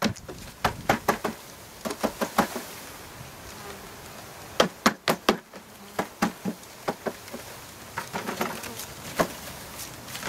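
A package of honeybees being knocked and shaken to drop the bees into the hive: clusters of sharp knocks, several at a time, with short gaps between, over the steady hum of buzzing honeybees.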